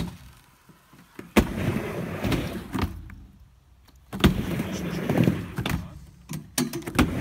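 Skateboard on a mini ramp: the board slaps down onto the ramp twice, each time followed by the wheels rolling on the ramp surface and fading away. Another slap comes near the end.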